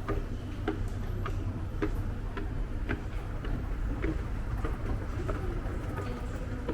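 Light clicks repeating about every half second to three-quarters of a second over a steady low rumble.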